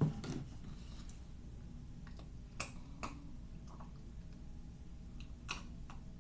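Chewing a mouthful of baked cornstarch: faint crunches and mouth clicks, with a handful of sharper crunches spread through.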